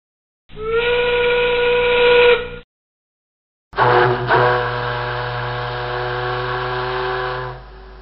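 Factory steam whistle blowing two blasts with steam hiss under the tone. The first lasts about two seconds and rises slightly in pitch as it starts. After a pause of about a second comes a longer blast of about four seconds, which drops to a faint tail near the end.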